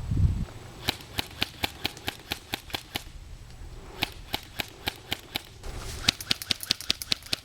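Airsoft guns firing shot after shot as sharp clicks, about five a second, in strings broken by two short pauses. A brief low rumble at the very start.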